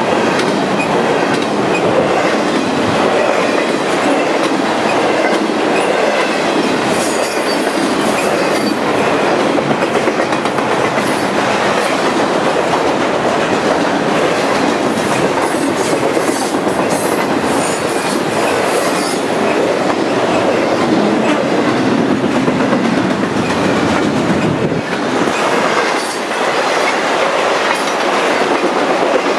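Freight train's intermodal cars, trailers on flatcars, rolling past at close range: a steady loud rolling noise of steel wheels on the rails, with thin high metallic squeaks from the wheels between about seven and nineteen seconds in.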